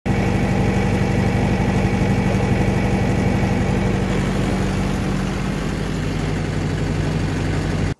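Mahindra compact tractor's diesel engine running steadily, heard from the operator's seat, with an even low drone.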